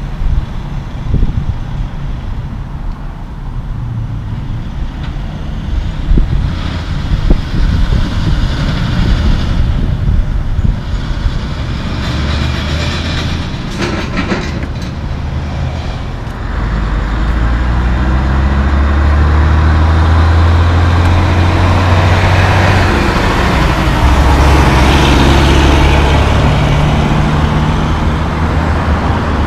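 Heavy truck traffic on a highway: diesel semi-trucks passing. About 16 s in the sound steps up to a louder, steady engine rumble as a semi-truck pulling a box trailer drives close by.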